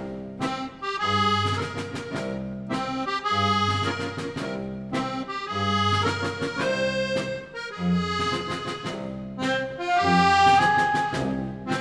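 Accordion music from a small-ensemble theatre score: phrases of held notes and chords over a low note that returns about every two seconds.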